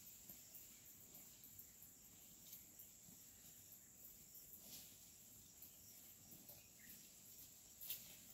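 Near-silent forest ambience: a faint, steady high-pitched insect drone, with scattered soft clicks and a sharper click near the end.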